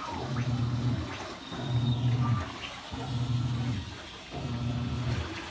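Panasonic NA-F120B5G 12 kg top-loading washing machine agitating: the motor hums in pulses about every second and a half as the pulsator turns back and forth, with water sloshing in the drum.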